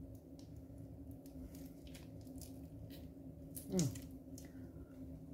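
Faint rustling and crackling of dry flakes crumbled between fingers and dropping onto rice in a frying pan, over a low steady hum. About four seconds in there is a brief sound that slides down in pitch.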